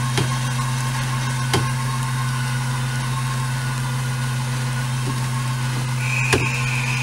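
Steady low mechanical hum from the recovery Jeep and its winch as the winch line pulls the flipped CJ7 over by its roll bar, with a few sharp clicks and a thin high whine joining near the end.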